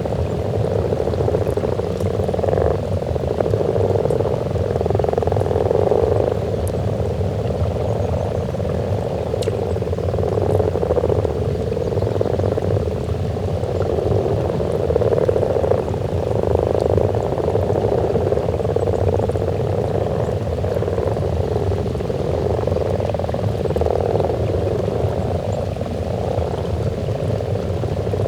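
Breeding chorus of many common frogs croaking at once at a spawning pond: a dense, unbroken mass of overlapping low croaks that swells and fades every second or two.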